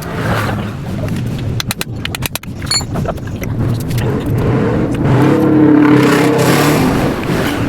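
Freshly overhauled Honda XRM 125 single-cylinder four-stroke engine running and being revved, its pitch climbing and growing louder about five seconds in, with a few sharp clicks about two seconds in.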